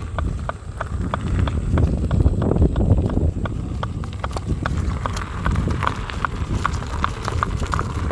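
KingSong S22 electric unicycle's hub motor knocking rhythmically, a few sharp knocks a second over a low rumble, the knocks coming closer together in the second half. The knock is in the motor itself, not the fender.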